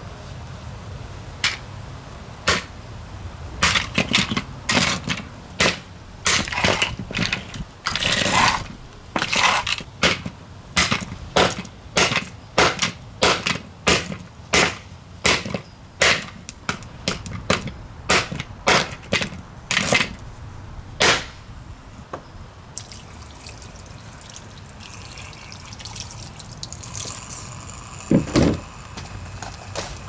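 Impress plastic table fan being smashed: a long run of hard blows, about two a second, that stops after about twenty seconds, then one more blow near the end.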